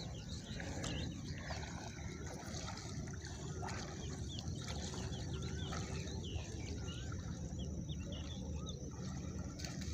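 Many short bird chirps and whistles, scattered through, over a steady low rumble and the lap of water.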